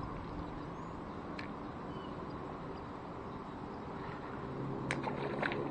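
Steady low outdoor background noise with a faint chirp, and near the end a few light clicks from handling the fishing rod and a just-caught small bream on the line.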